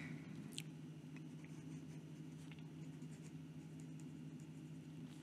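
Hero 616 fountain pen's fine steel nib writing on lined notebook paper: faint, light scratching and small ticks as the strokes of the letters are made. A steady low hum runs beneath.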